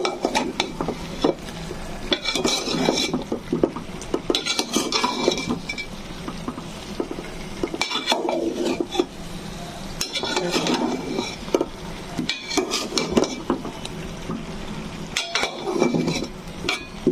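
Metal spoon scraping and clinking against a metal cooking pot as chunks of taro in spice paste are stirred, in bursts every two to three seconds.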